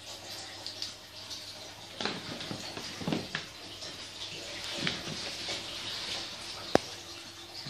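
Crumpled kraft paper bag rustling and crinkling as a CYCJET ALT360 handheld inkjet printer is pressed against it and rolled across, with several short rustling swells. One sharp click near the end stands out as the loudest sound.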